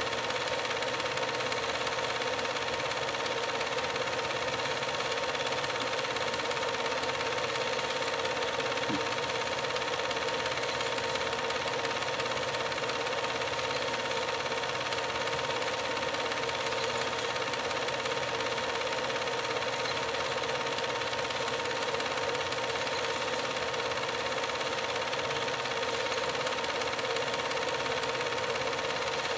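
Steady mechanical running noise with hiss and a thin steady whine, unchanging in level, with a faint even ticking underneath.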